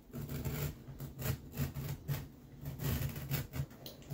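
Carpet being trimmed back with a hand carpet knife along its folded edge: a run of short, irregular scraping and rasping cuts, with the dull rustle and thud of the carpet being handled.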